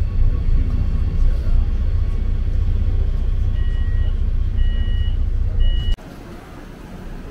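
A train at a station gives a heavy, loud low rumble. About three and a half seconds in, three short two-tone electronic beeps sound about a second apart. The rumble cuts off abruptly about six seconds in.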